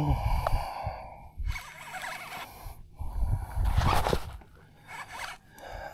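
A man breathing hard in short huffs and gasps as he strains to reel in a strong-pulling fish. The breathing comes over a low rumble of wind and rod-handling noise.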